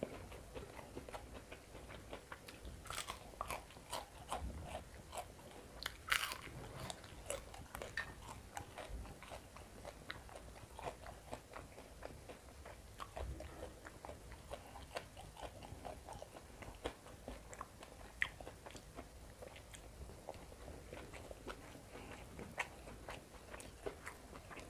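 A person chewing and crunching crisp food close to the microphone, with frequent irregular bites and smacks. A few louder crunches stand out in the first six seconds and one about 18 seconds in.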